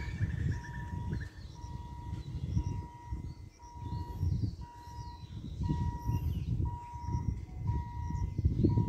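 Wind buffeting the microphone in gusts, while a short electronic beep repeats steadily about once a second, with faint bird chirps.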